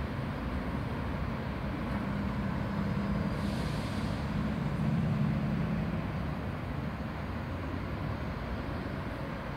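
Steady low rumble of distant city traffic, swelling a little about halfway through, with a brief hiss a few seconds in.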